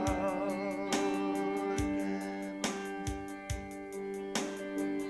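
Instrumental break in a slow song: held chords over a slow, steady beat, with no singing.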